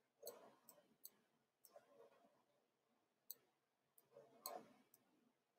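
Near silence broken by about half a dozen faint, sharp clicks at irregular intervals, from computer input while handwriting on a digital whiteboard.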